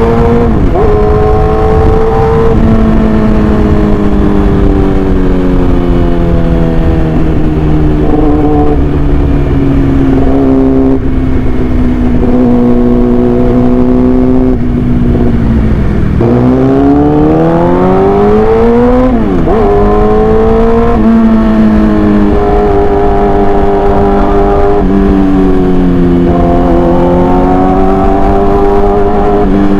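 Yamaha R6 inline-four sport bike running loud through an SC Project aftermarket exhaust. Its engine note sinks slowly for the first half, climbs quickly just past halfway, drops sharply for a moment as at a gear change, then climbs again and wavers at mid revs.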